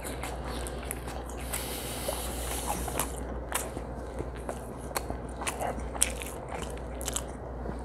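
Close-up soft wet clicks, smacks and crackles of pulled pork being worked into a bite by gloved hands and eaten, scattered irregularly throughout, over a faint steady low hum.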